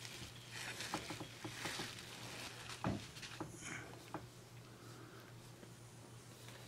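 Bubble-wrap sleeve crinkling and rustling as a Blu-ray case is slid out of it, with a few light clicks of the plastic case being handled. It quiets to soft handling noise about four seconds in.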